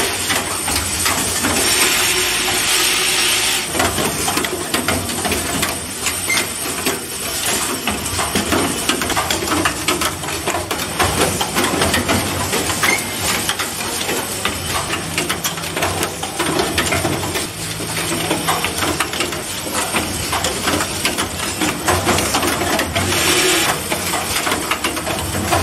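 Automatic motor-holder assembly machine running: a steady clatter of clicks and knocks from its pneumatic actuators and parts handling, with bursts of compressed-air hiss about two seconds in and again near the end.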